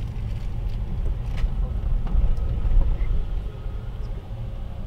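Car cabin noise while driving: a steady low rumble of the engine and tyres on the road, heard from inside the car.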